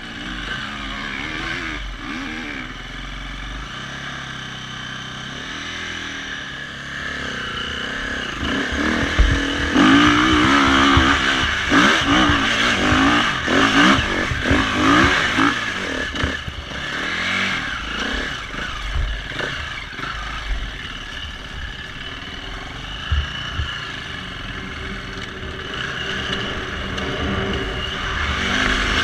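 Enduro dirt bike engine heard from the rider's helmet camera, revving up and down over rough ground, loudest from about ten to sixteen seconds in, with stones clattering under the tyres.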